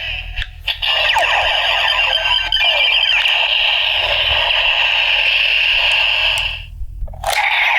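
Electronic sound effects from the DX W Double Ridewatch toy, played through its small tinny speaker. After a click, a sound with sweeping falling tones runs for about six seconds and stops. Another click follows, and a new sound starts near the end.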